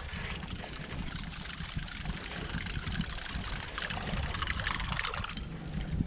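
Large buzzbait lure being retrieved across the water surface, its blade churning and sputtering steadily, over a low rumble of wind on the microphone.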